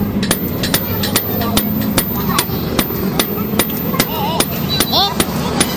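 Hammer blows on metal at an anvil, a steady run of sharp strikes at about four a second, typical of hand forging.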